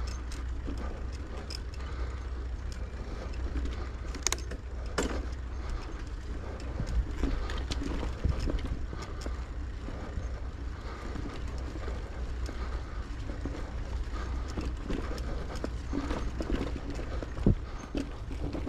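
Bicycle being ridden along a park path: a steady low rumble from the moving bike, with scattered rattles and clicks and a sharp knock near the end.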